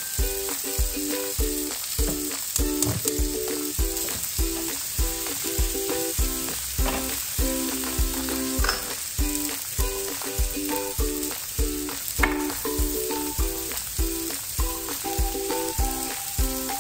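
Sliced mushrooms sizzling as they fry in a square grill pan over a gas flame, with background music keeping a steady beat.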